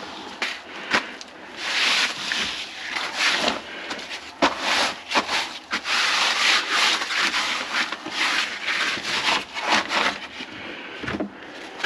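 Plumber's drain snake working in a kitchen sink drain that is partly clogged with grease: irregular scraping and rubbing with many short clicks as the cable and its spade head grind along the pipe.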